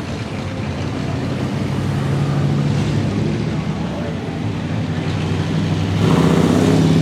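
A hot rod's engine running as the car drives by, with a low, steady rumble that grows louder about six seconds in as it comes closer.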